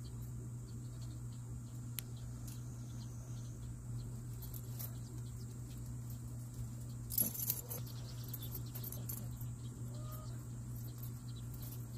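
Light metal chain clinking, loudest in a brief cluster about seven seconds in, as a chained dog gets up and moves on concrete, over a steady low hum. A brief faint puppy squeak near the end.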